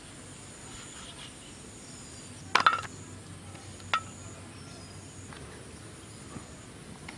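Sharp metallic clinks on a steel bowl: a quick cluster about two and a half seconds in and a single one about a second later. Behind them is a steady high chirring of insects.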